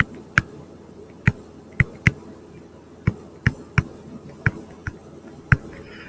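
Stylus tapping and clicking on a tablet screen during handwriting: about a dozen short, sharp taps at irregular intervals.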